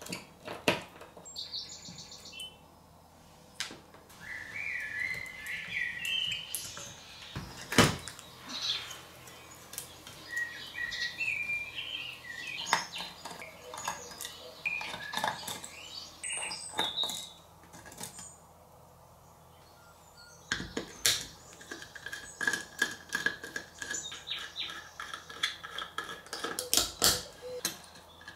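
Screws being undone from a Seagate hard drive's metal case and circuit board with a precision screwdriver: short squeaky creaks as the screws turn, among metallic clicks and clinks of the tool and parts. The loudest is one sharp click about eight seconds in.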